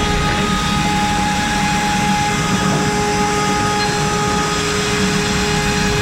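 CNC router spindle running at 24,000 rpm with a steady whine, its 8 mm cutter milling a wooden bottle shape, over a rough rumble of cutting noise.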